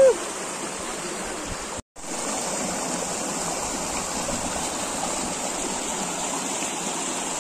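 Shallow mountain stream rushing over and between boulders: a steady rush of water. It cuts out for a split second about two seconds in.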